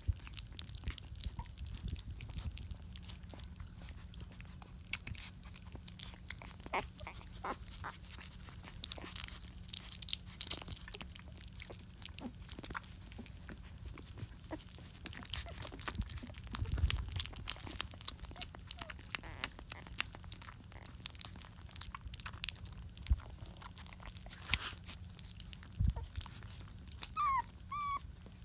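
Rottweiler puppies, about three weeks old, nursing on their mother: irregular wet sucking and smacking clicks. Near the end a puppy gives two short squeaks.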